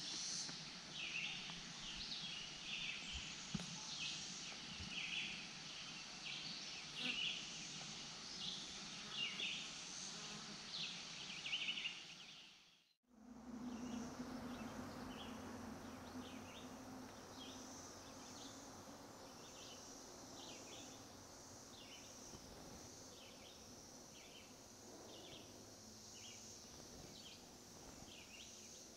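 Faint, steady high-pitched drone of a distant Brood X periodical cicada chorus, with short chirps repeating about once a second over it. The sound drops out briefly about 13 seconds in.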